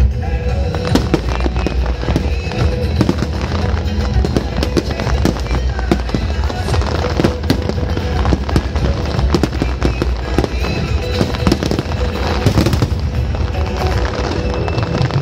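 Fireworks shells bursting and crackling in rapid, overlapping succession, many sharp cracks a second, over loud music with a heavy bass.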